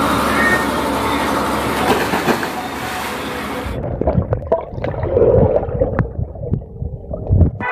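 Loud rushing, splashing water noise, which cuts off sharply about halfway to the muffled sound heard underwater in a swimming pool: low gurgling and scattered bubble clicks.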